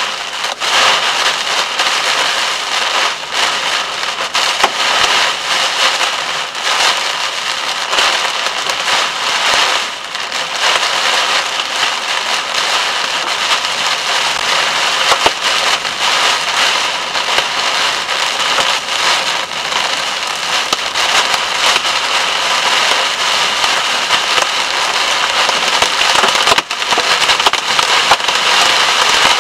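Cloudburst rain pelting the car's roof and windscreen, heard from inside the cabin: a loud, dense patter of countless small impacts that keeps up without a break.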